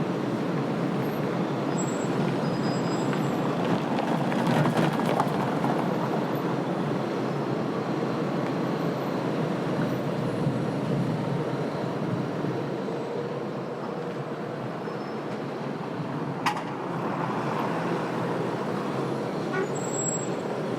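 Busy city street traffic: a steady rumble of passing cars and buses, swelling about four to five seconds in. A single sharp click or knock about sixteen seconds in.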